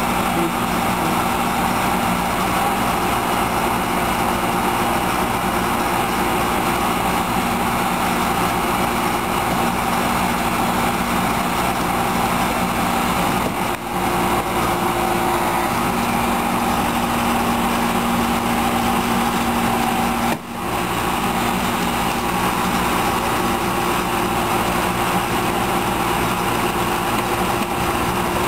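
Small engine of a hydraulic rescue-tool power unit running steadily to drive the extrication tools, dipping briefly twice.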